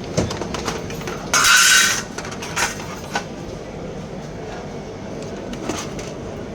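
Plastic printer casing parts being handled and pried: a few sharp clicks, and a harsh scraping rasp lasting about half a second, a little over a second in, over a steady background rumble.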